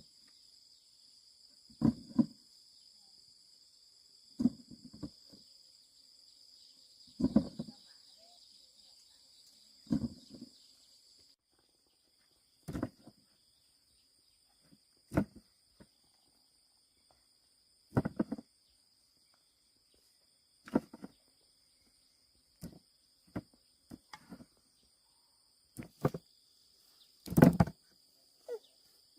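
Short dull thumps repeating every few seconds, more irregular and closer together in the second half, over a steady high-pitched drone of insects.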